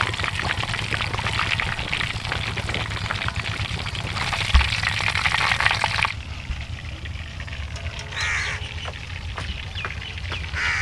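Fish deep-frying in a karahi of hot oil, crackling and sizzling, a little louder for a moment about four seconds in. The frying cuts off suddenly about six seconds in, leaving a quieter background with a few short bird calls.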